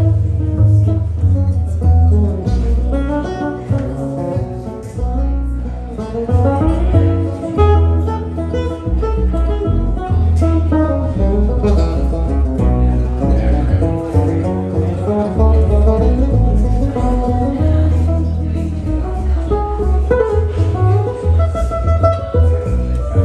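Acoustic guitar and plucked upright double bass playing live together, with the bass notes strong and full underneath.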